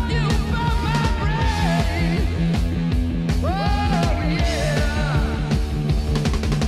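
Background rock music with a steady beat and a gliding melody line, possibly with guitar.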